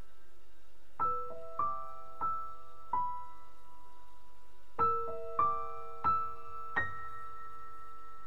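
Slow, sparse background piano music. Single notes and chords are struck about every half second to second in two groups of four, with a pause of about two seconds between them, each note ringing on and fading.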